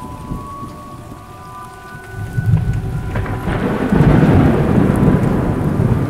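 Thunderstorm: steady rain with a deep rumble of thunder that swells from about two seconds in and is loudest in the second half. Faint steady tones sound over the rain in the first half.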